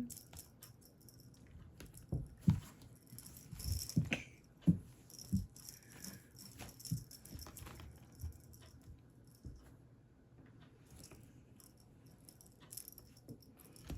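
Cat toy rattling and jingling, with scattered soft knocks and taps as the cats play.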